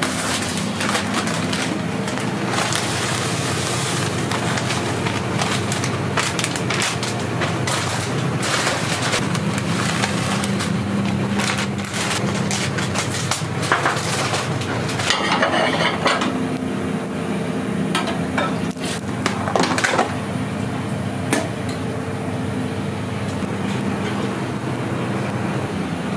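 Commercial kitchen prep sounds: a steady low hum, like burners or an extractor fan running, under dense crackling, scraping and clattering of utensils and ingredients. The crackling thins out about halfway through.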